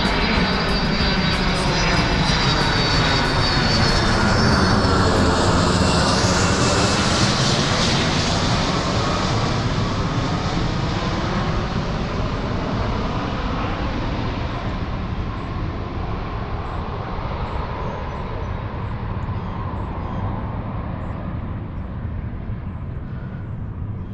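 Airplane engine noise passing overhead. It swells to its loudest around five to seven seconds in, then slowly fades away.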